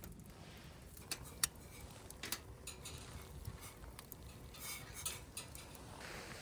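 Metal camp cookware handled, with several sharp light clinks and taps spread over a few seconds.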